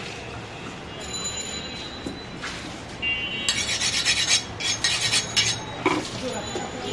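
A butcher's cleaver being sharpened against a steel rod: a quick run of rasping metal-on-metal strokes starts about halfway through and stops shortly before the end, over steady low background noise.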